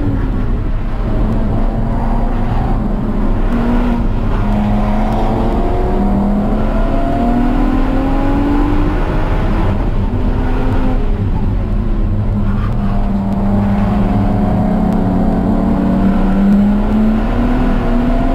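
A car's engine being driven hard on a race track lap. Its pitch climbs under acceleration and drops back several times as it changes gear or lifts, over a steady low rumble.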